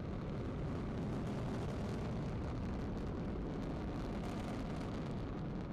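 Long March 2C carrier rocket's first-stage engines during liftoff and ascent: a steady low rumble with crackling.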